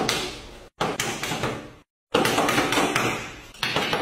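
A series of sharp impacts, each starting suddenly and dying away over about a second, broken by abrupt silent gaps.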